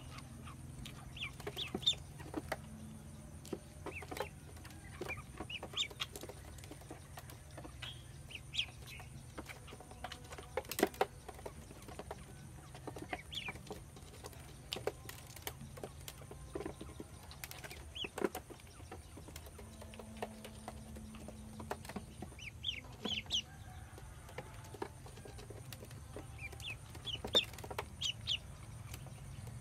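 Ducklings peeping in short, high, scattered chirps while they feed, with occasional sharp clicks of bills pecking at grain in a bowl.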